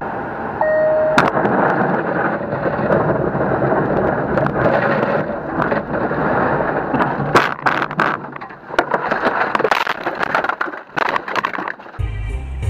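A car's in-cabin noise picked up by a dash cam on a snow-covered road: steady rumbling road and tyre noise, with a short beep near the start and scattered knocks and rattles from about seven seconds in.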